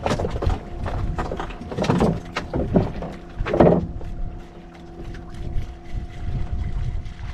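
Fishing boat's engine running with a steady hum, and wind rumbling on the microphone. Several loud, sudden sounds come in the first four seconds.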